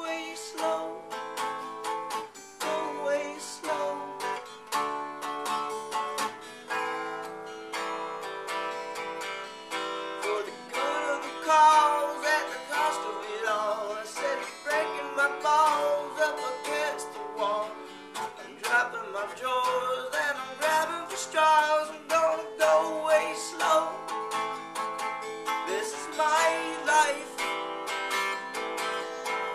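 Steel-string acoustic guitar strummed in chords, with a man's singing voice over it in parts.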